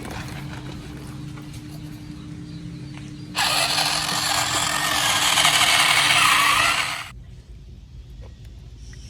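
Small electric gear motor of a radio-controlled toy construction vehicle whirring steadily. About three and a half seconds in, a loud rushing hiss starts, lasts nearly four seconds and cuts off suddenly.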